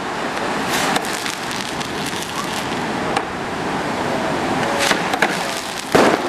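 Fireworks display: aerial shells bursting with sharp bangs at irregular intervals, the loudest near the end, over a steady hiss.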